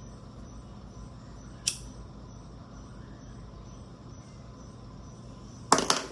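A lighter struck once with a sharp click, then a short cluster of louder clicks and knocks near the end, as the bong is lit.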